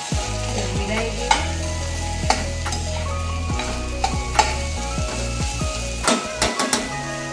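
Chopped bitter gourd sizzling as it fries in oil in a stainless steel pan while a metal spoon stirs it, with sharp clicks and scrapes of the spoon against the pan, several in a quick cluster near the end.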